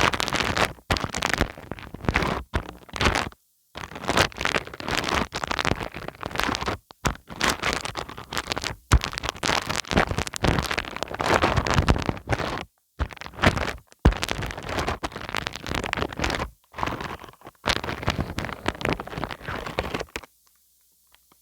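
White PVA wood glue being worked over a wide surface, with sticky crackling and scraping in irregular runs broken by short pauses, stopping shortly before the end.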